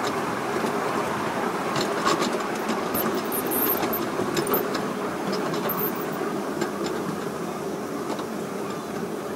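A 5-inch gauge model steam locomotive running along a miniature railway track: a steady rumble with scattered sharp clicks from the wheels on the rails, easing off slightly toward the end.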